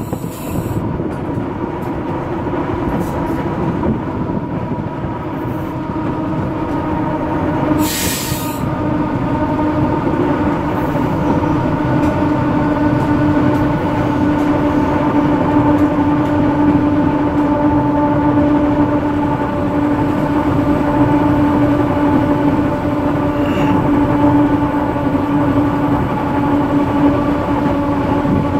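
Diesel train running along rusty, wooden-sleepered track: a steady engine drone with its pitch held nearly constant over the rumble of the wheels on the rails. A short hiss about eight seconds in.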